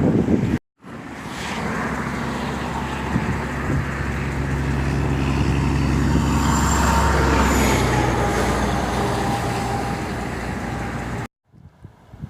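Motor vehicle running steadily, swelling to its loudest around the middle and easing off, then cutting off suddenly. Wind on the microphone is heard briefly at the very start and again after the cut.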